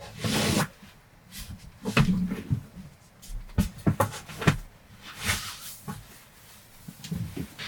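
Irregular knocks, clicks and short rustles of objects being handled in a small enclosed space, with quiet gaps between them.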